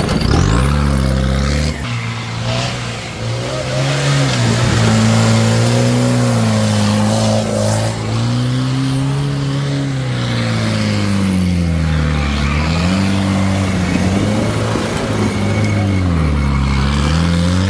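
Off-road jeep's engine revving hard under load as it climbs and accelerates over rough dirt, its pitch rising and falling again and again with the throttle and dropping low twice in the second half.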